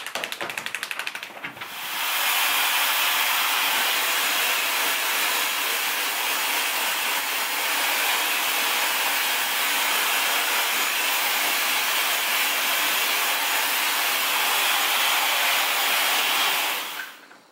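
Handheld hair dryer running steadily, blowing air over a wet dog's coat. It starts about two seconds in, after a short spell of rapid rustling, and cuts off near the end.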